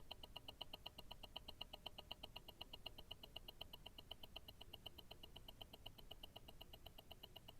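Invicta Grand Octane tourbillon movement ticking, its escapement beating in a fast, perfectly even rhythm of several ticks a second. Picked up through a stethoscope, so the ticks are close and faint against a low hiss.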